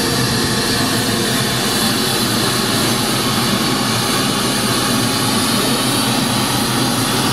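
Steady, even rushing hiss of test noise, like pink noise, played loud through PA loudspeakers while the system is being tuned with its speaker processor.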